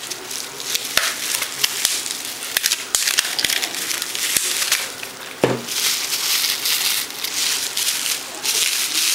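Packaging crinkling and rustling as a recurve bow riser is unwrapped, a dense irregular crackle with small clicks. There is one short, louder knock about halfway through.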